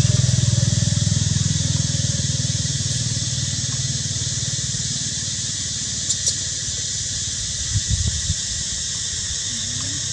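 An engine running with a steady low hum that fades over the first few seconds and carries on more quietly, over a steady high hiss. A few soft clicks come near the middle and later on.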